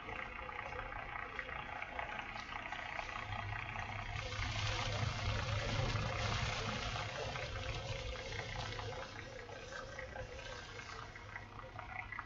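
Storm wind and rain noise on the chase vehicle, a steady rushing hiss over a low rumble. It swells about four seconds in and eases off after about eight seconds.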